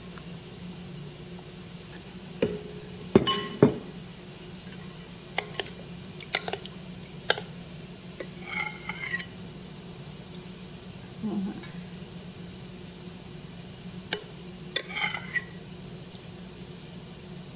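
Metal cookware clinking: a mini muffin tin, ladle and aluminium steamer pot knocked and handled, with several sharp clicks in the first half and two short rattles, about halfway and near the end. A steady low hum runs underneath.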